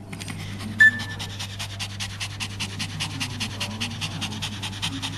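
Australian Silky Terrier in labour panting rapidly and evenly, the heavy panting of a bitch whelping. A brief high-pitched squeak stands out about a second in, over a low steady hum.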